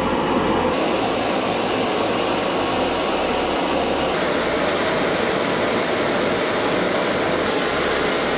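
Primus Micron Trail Stove's canister-gas burner running at full flame: a steady hiss under a kettle of water nearing the boil, its tone shifting slightly about one and four seconds in.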